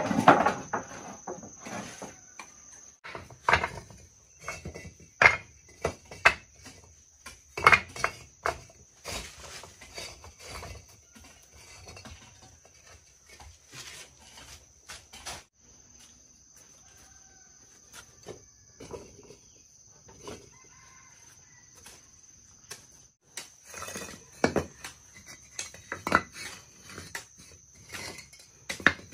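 Chickens clucking, among scattered sharp knocks and clatter, with a steady high-pitched buzz behind them that breaks off now and then.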